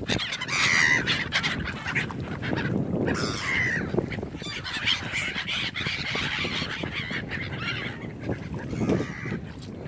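A flock of black-headed gulls calling, harsh overlapping cries that keep going as the birds flap and take off from the water.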